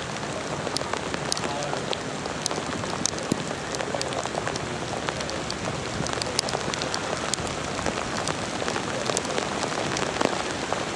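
Steady rain: an even hiss dotted with many sharp, irregular taps of single drops.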